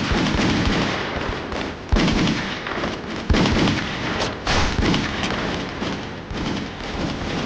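Dense gunfire and explosions, shots and blasts overlapping with heavy thuds; the sharpest cracks come about two seconds and about three and a half seconds in.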